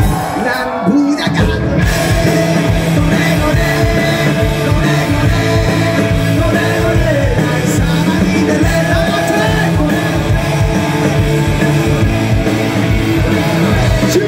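Live punk rock band playing loud: after a brief break with a voice shouting, the band comes back in about a second and a half in with a fast, steady drumbeat and guitars, and singing over it.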